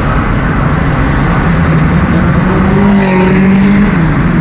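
A car driving along: steady engine and road rumble, the engine note climbing in pitch and then dropping back shortly before the end.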